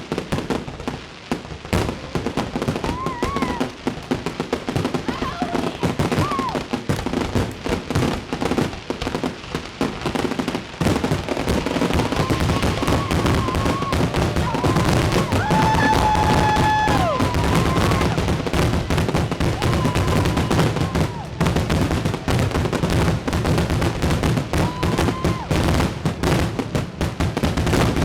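Fireworks going off in a rapid, continuous barrage of cracks and bangs, with a few short high tones rising over it, the clearest about halfway through.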